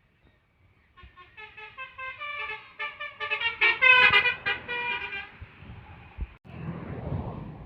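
Tour bus's telolet basuri musical horn playing a quick tune of short notes that step up and down in pitch, loudest about four seconds in. After a brief break, vehicle engine and road noise.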